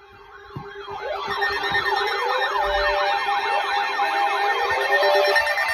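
Electronic sirens in a fast rising-and-falling yelp, several overlapping, growing louder over the first couple of seconds and then holding steady.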